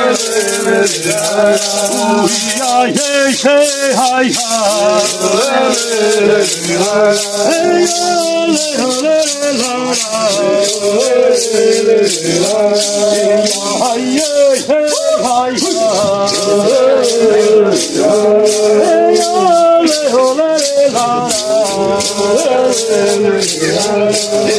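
Hand rattles (maracás) shaken in a steady, even beat while voices sing a ritual chant over them.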